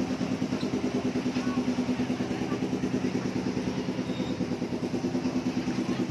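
Small engine of an amusement-park ride-on train running steadily, with a rapid, even pulse.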